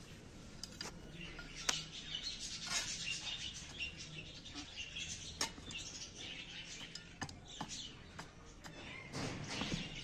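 Small birds chirping, with sharp scrapes and taps of a hand trowel digging into potting soil in a clay pot.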